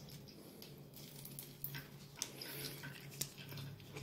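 A few faint, light clicks and taps from a plastic fruit cup being handled over a sink, against a low steady room hum.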